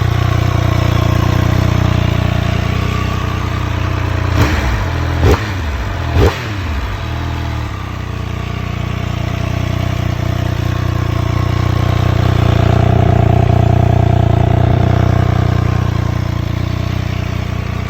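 Triumph Speed Triple 1200 RS's inline three-cylinder engine idling through its stock exhaust, with three quick throttle blips about four to six seconds in, each rising and falling in pitch, before it settles back to a steady idle.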